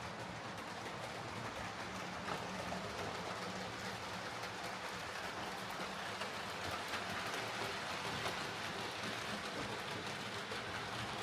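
Oxford Rail Dean Goods model steam locomotive running on track: a steady whir and rattle of its motor and wheels on the rails.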